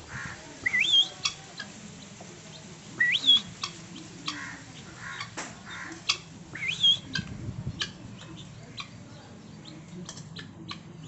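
Guineafowl calling: three loud rising squawks about three seconds apart, with scattered short, sharp clicks between them.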